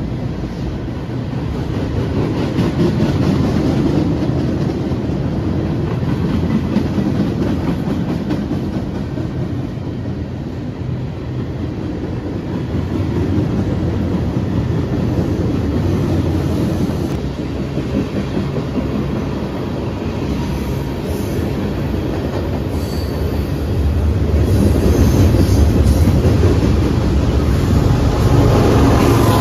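Freight train cars rolling past at speed: a steady rumble of steel wheels on rail with clickety-clack over the rail joints. It grows louder in the last few seconds as a diesel locomotive in the train draws near.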